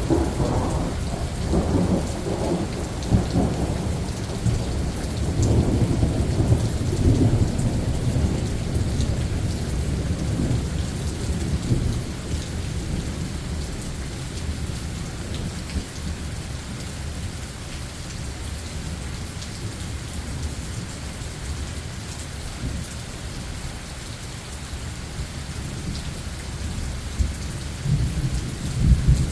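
Steady rain falling, with a long roll of thunder rumbling through the first dozen seconds and slowly dying away, then another rumble of thunder starting near the end.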